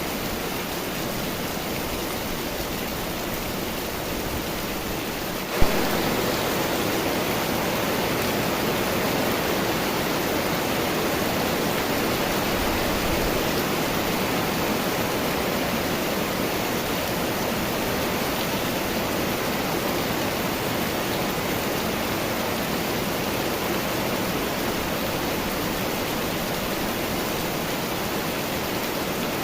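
Steady rain falling, an even rushing hiss. A single sharp click about five and a half seconds in, after which the rain is a little louder.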